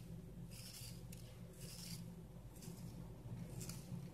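Faint dry rustles of nigella seeds rubbed between fingertips and sprinkled onto egg-washed börek rolls on a parchment-lined tray, in short bursts about once a second, over a low steady hum.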